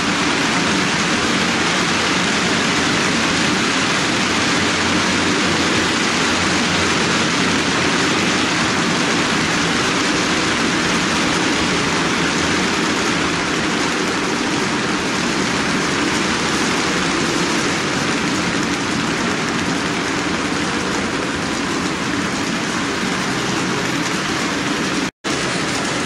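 HO-scale model freight train of Athearn 40-foot ice-bunker reefers rolling steadily along the layout track: a continuous rushing rumble of metal wheels on rails. The sound drops out for an instant near the end.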